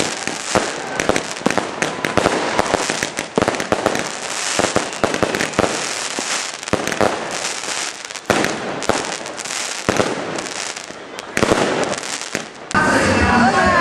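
Aerial fireworks going off in rapid succession: many sharp bangs mixed with dense crackling from crackling stars. About a second before the end it cuts suddenly to music.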